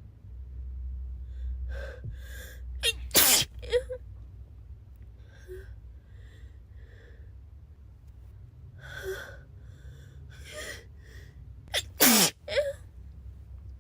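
A girl sneezing twice, about nine seconds apart, each sneeze preceded by a few catching, gasping in-breaths.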